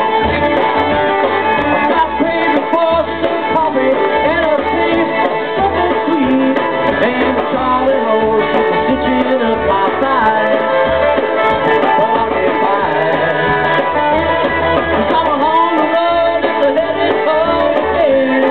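Live bluegrass band playing an instrumental passage: fiddle, acoustic guitar and banjo over a drum kit, with a steady low beat.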